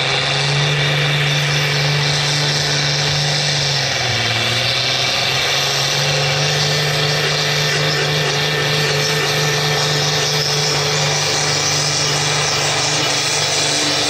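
Valtra 8550 tractor's tuned 7.4-litre Sisu six-cylinder diesel running flat out under heavy load as it drags a weight-transfer sled, its exhaust pouring black smoke. The engine note is steady, sags briefly about four seconds in, then picks back up.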